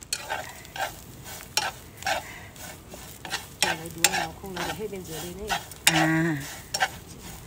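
Metal tongs scraping and clicking against a metal frying pan in repeated, irregular strokes as wild tea buds are tossed and stirred while dry-roasting over a fire, kept moving so they don't scorch. A short low hum of a voice comes in about four to six seconds in.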